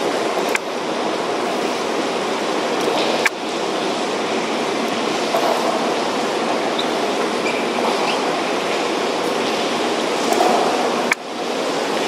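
Steady rain falling with wind, a dense, even rushing noise, broken by a few sharp clicks.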